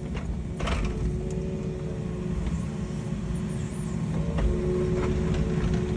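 An engine running steadily, a low rumble under a constant hum, with a few light knocks, the clearest one just under a second in.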